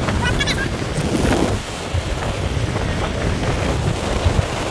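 Gullfoss waterfall rushing in a loud, steady roar, with wind buffeting the microphone.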